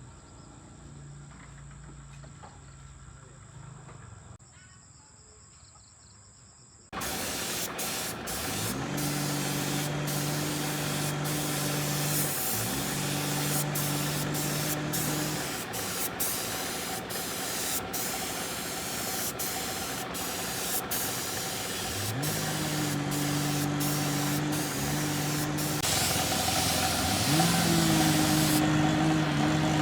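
A steady hiss that starts suddenly about seven seconds in. Over it a motor hum rises in pitch and holds for a few seconds, four times, like a machine cutting in and out.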